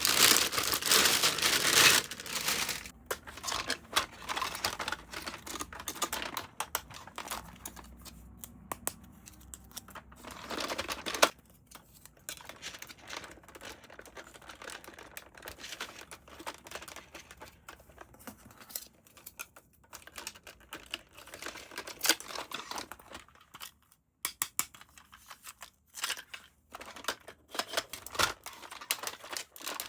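Packaging crinkling and rustling in irregular bursts, with small clicks and taps, as a toy is unpacked by hand. It is loudest in the first couple of seconds, with another burst about ten seconds in.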